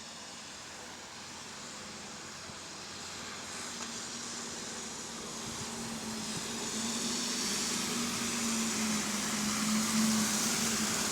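A bus running and picking up speed: a steady hum that slowly rises in pitch and grows louder over a wash of running noise.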